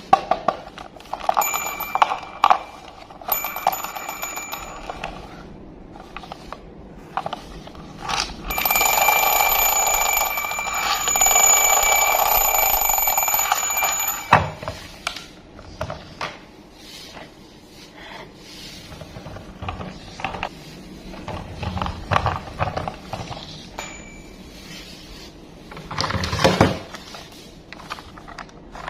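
A steady, high-pitched electronic ringing tone sounding in spells: two short ones in the first few seconds, then a long one of about six seconds, and a brief blip near the end, over clicks and rustling from handling.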